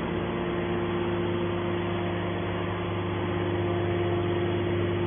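Hydraulic scrap metal baler running steadily, a constant machine hum with a held tone.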